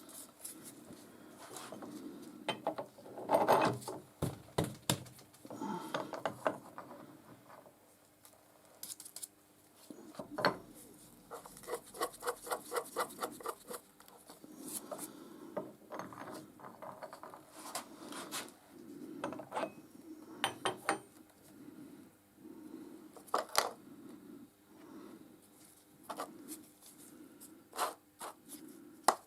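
Workshop handling noises: metal tools and parts clinking, knocking and scraping, with a quick run of even clicks, about four a second, partway through.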